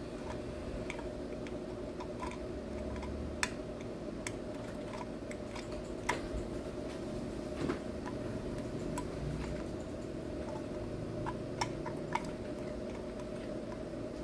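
Scattered light ticks and small clicks as the tip of a small knife picks and scrapes at the fine voice-coil lead wire of a titanium compression-driver diaphragm, lifting the wire to find where it is broken. A steady low hum runs underneath.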